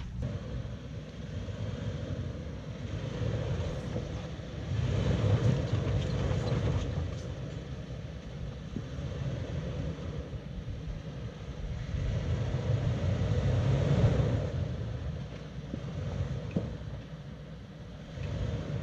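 Toyota SUV engines running at low speed while crawling over rocks on a dirt trail, a steady low rumble that swells twice, about five seconds in and again about thirteen seconds in, as the throttle is worked.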